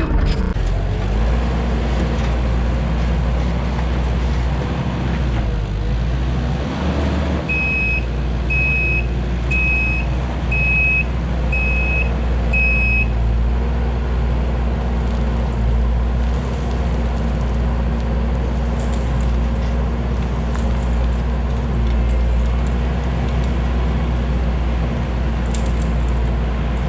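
Kubota SVL90-2 track loader's diesel engine running steadily while backfilling gravel. About seven seconds in, its backup alarm beeps six times, about once a second, as the machine reverses.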